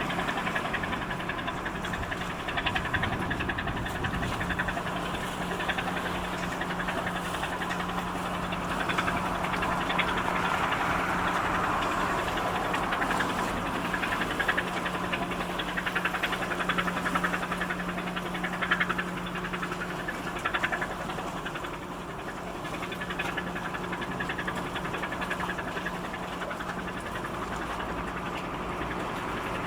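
A passing cargo ship's engine running steadily, a low even hum that swells in the middle and drops away about two-thirds of the way through.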